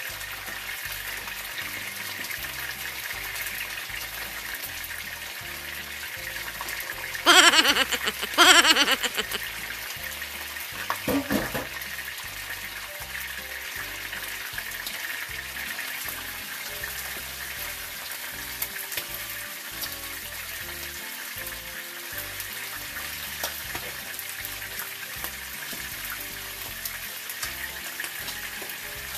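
Tuna steaks sizzling steadily as they fry in hot oil in a pan, the oil spitting enough to need a splatter shield. Two loud falling-pitch swoops sound about seven and eight seconds in, and a weaker one about eleven seconds in.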